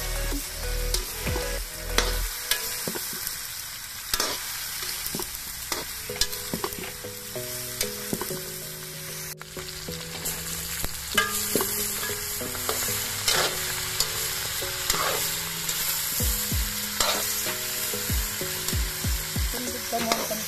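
Chicken, tomato and kamias sizzling in a steel wok, with a steady frying hiss and a metal spatula scraping and knocking against the pan now and then as the food is stirred.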